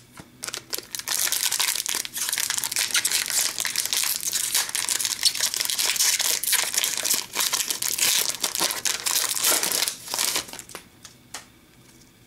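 Plastic wrapper of a 2014-15 Upper Deck Series One hockey card pack crinkling and crumpling loudly as it is opened and handled, a dense crackle lasting about ten seconds and dying away near the end.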